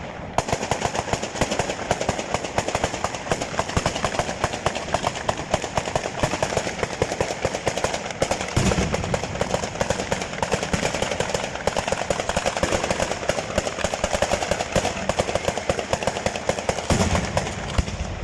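Fireworks going off in a rapid, unbroken rattle of many small sharp bangs, like machine-gun fire, with a deeper boom about nine seconds in and another near the end.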